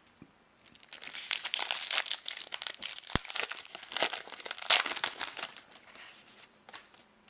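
Wrapper of a trading card booster pack being torn open and crinkled: a dense run of crackling that starts about a second in and dies down after about five seconds, followed by a few faint rustles.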